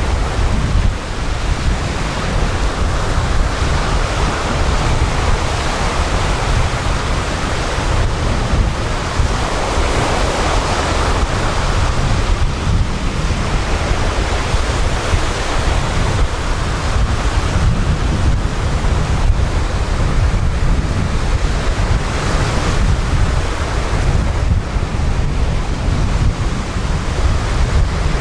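Sea surf breaking and washing up a coarse-sand beach, swelling and ebbing every few seconds. Wind buffets the microphone as a constant low rumble underneath.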